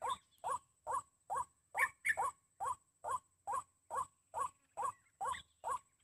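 White-breasted waterhen calls: a short, harsh 'kwak' note repeated very evenly, a little over two a second, the waterhen's call that trappers use to lure the bird.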